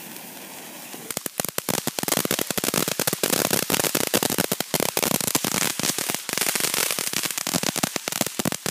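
Ground fountain firework spraying sparks with dense, rapid crackling that starts about a second in and keeps going, many sharp pops close together.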